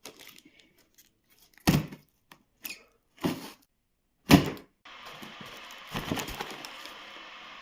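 Cardboard power-supply box being opened by hand: several separate thuds and knocks as the box and flaps are handled, then continuous rustling of packing paper from about five seconds in.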